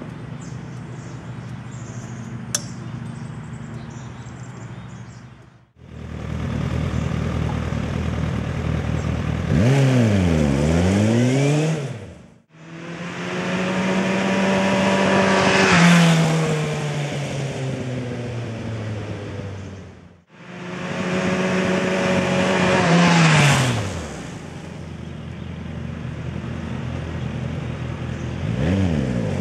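Sport motorcycle engine idling, then in several clips that break off abruptly, the bike revving up, riding past and slowing, its engine note dropping as it decelerates under engine braking and rising again as it pulls away.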